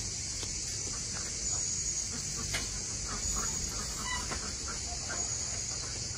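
Chickens clucking now and then, faintly, over a steady high-pitched hiss.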